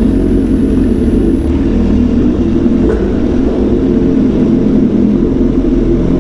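BMW S1000XR's inline-four engine running at a steady pitch through a full exhaust system while the motorcycle is ridden at an even speed.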